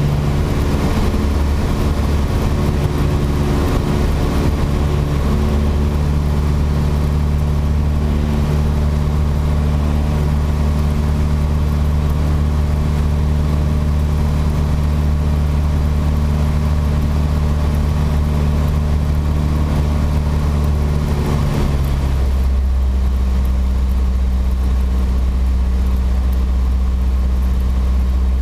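Piper PA-28-140 Cherokee's four-cylinder Lycoming engine and propeller droning steadily in flight, heard inside the cabin. About three-quarters of the way through, the engine note drops to a lower pitch.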